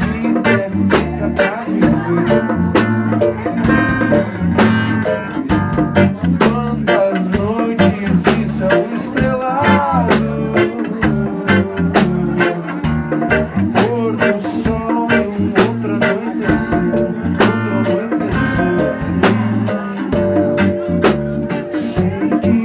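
Live band playing a bluesy rock number: Stratocaster-style electric guitar over bass and a steady drum beat, with bent guitar notes about ten seconds in.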